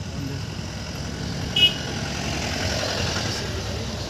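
A car driving past close by on a road, with a brief high horn toot about one and a half seconds in, the loudest moment.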